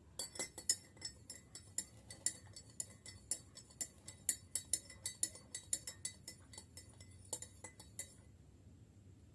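A spoon stirring honey into a drink in a drinking glass, clinking rapidly and repeatedly against the glass walls with a light ring; the clinking stops about eight seconds in.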